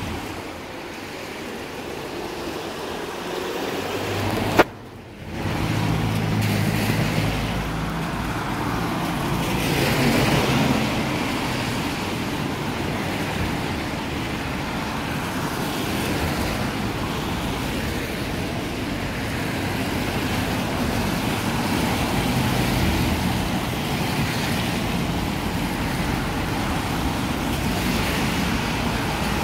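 Road traffic on a wet road: steady tyre hiss with the engines of passing cars and a van swelling and fading as each goes by. About four and a half seconds in there is a sharp click, and the sound drops away for about a second before the traffic returns.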